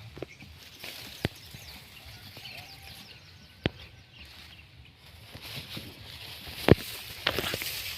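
A few sharp knocks, spaced seconds apart, the loudest about two-thirds of the way through, over a steady outdoor hiss.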